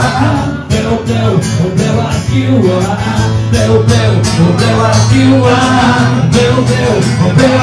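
Live acoustic music: a man singing into a microphone over a steadily strummed acoustic guitar, in a country style.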